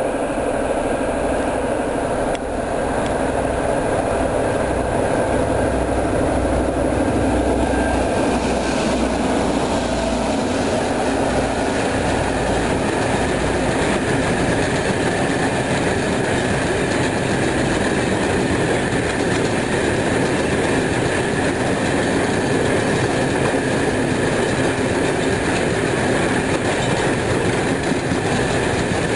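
VR Class Dv12 diesel-hydraulic locomotive passing at full throttle, its engine giving a deep steady drone for about the first ten seconds. A long string of ore hopper wagons then rolls past with a steady clickety-clack of wheels over the rails.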